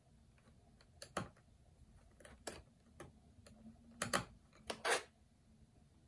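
Small precision screwdriver working the screws back into a MacBook Pro's aluminium bottom case: a scattered series of light metallic clicks and taps, the loudest about one second in and a cluster between four and five seconds in.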